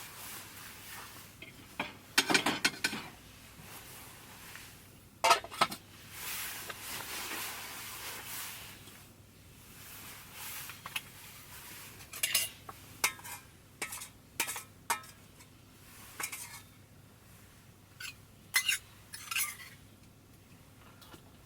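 Metal cookware and utensils clinking and scraping in a run of separate sharp knocks, with a hissing stretch about six seconds in.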